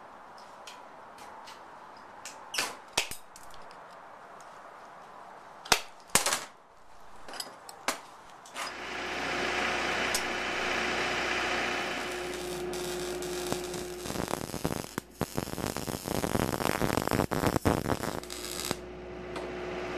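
Steel tubing clanks sharply a few times as it is handled on a steel table. After that a steady hum sets in, and near the end comes several seconds of dense crackling from an arc welder joining an end cap to the tube.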